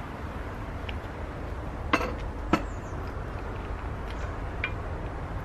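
Wooden spoon stirring in a cast-iron Dutch oven, clinking against the pot with two sharp knocks about two seconds in and a few lighter taps, over a steady low rumble.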